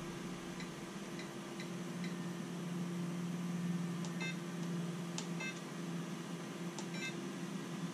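Hand-held radio-control transmitter beeping at each button press as its menu is worked to reverse the steering servo. Short high beeps: four spaced about half a second apart, then several more later on. A steady low hum runs underneath.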